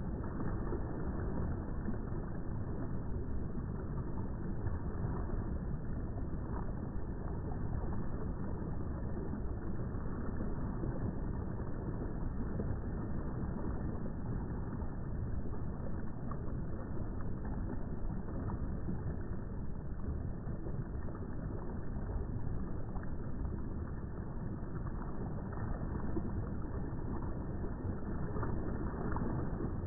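Steady, low rushing of moving water, even throughout with no distinct splashes or other events.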